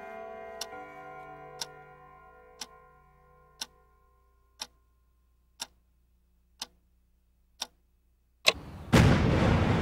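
A clock ticking steadily about once a second while the held notes of background music fade away. Near the end, a sharp knock is followed by a sudden loud rushing noise.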